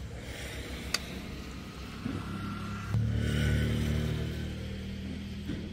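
A motor vehicle's engine running, a low steady drone that grows louder about three seconds in and cuts off near the end. A single metal clink about a second in, as the serving spoon strikes the steel curry pot.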